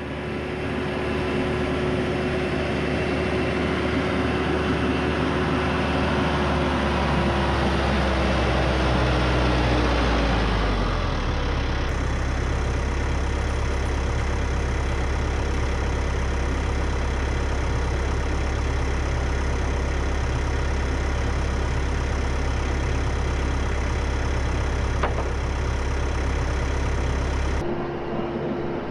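TYM 574 tractor's diesel engine running close by, its pitch dropping about ten seconds in as the revs come down, then running steadily, with the note changing again near the end.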